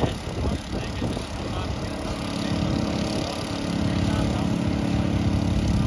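Engine of a snow-clearing machine running, with a steady low hum that sets in about two seconds in and grows louder.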